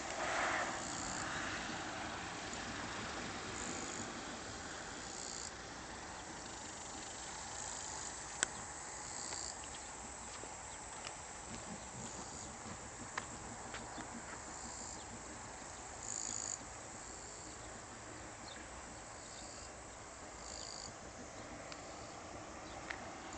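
Insects calling in short, high-pitched bursts every few seconds over a steady background hiss, with one sharp click about eight seconds in.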